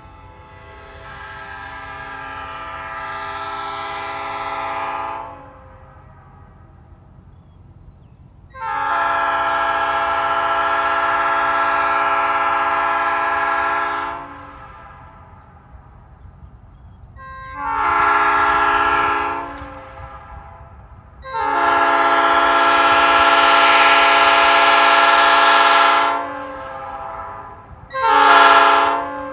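Nathan Airchime new-cast P5 five-chime air horn blown five times: a first blast that swells slowly over several seconds, two long steady blasts, and two short ones, the last near the end. Each sounds the horn's steady five-bell chord.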